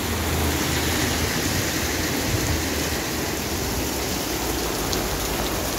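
Heavy rain pouring steadily onto a paved street and sidewalk, a constant hiss of falling and splashing water.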